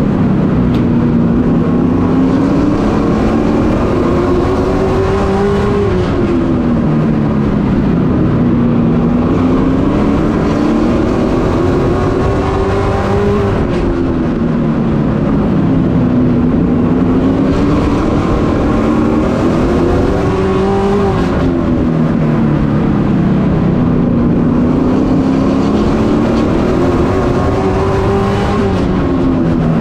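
Race truck's engine heard from on board, running hard around a short oval. The engine note climbs on each straight, then drops as the driver lifts for the turn, about every seven and a half seconds.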